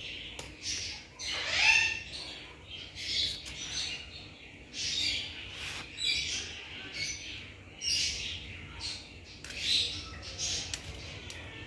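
Steel knife and metal spatula scraping as they spread minced shami kebab mixture onto soft buns over a wooden cutting board, in a string of short scraping strokes. One squeak comes a little under two seconds in.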